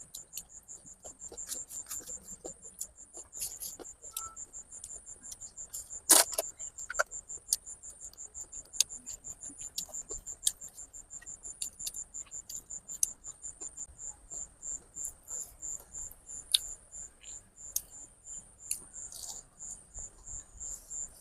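A cricket chirping steadily in a regular high pulse, about three chirps a second. Over it come scattered small clicks and one sharper knock about six seconds in.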